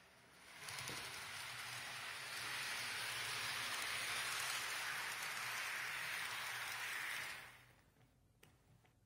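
TT-scale model ETR 610 train running past on its track: a steady rolling hiss of the wheels on the rails over a low motor hum. It swells about half a second in and fades away near the end as the train passes by.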